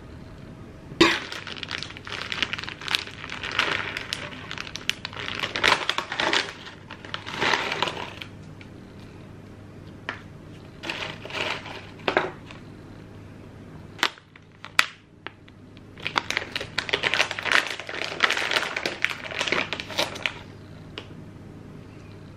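Crinkling and rustling of a plastic salad-topping packet being handled and tipped, in several bursts, with croutons scattered onto lettuce. A couple of sharp clicks about two-thirds of the way through.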